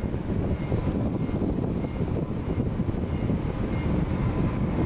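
Jet airliner engines rumbling across the airfield: a steady low rumble with a faint whine above it.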